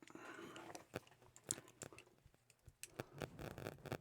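Faint scattered clicks and small scrapes of lock-picking tools being fitted into the keyway of a brass-bodied padlock, as a tool is tried that proves too big for it.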